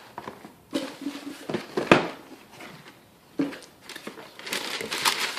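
Cardboard sneaker box being opened and handled: a few soft knocks, one sharp knock about two seconds in, and a rustling noise building near the end.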